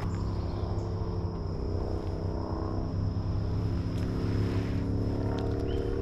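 An engine running steadily at an even pitch.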